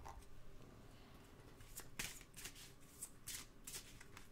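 A large deck of divination cards being shuffled by hand, faintly. From about two seconds in there is a run of short, papery swishes, two or three a second.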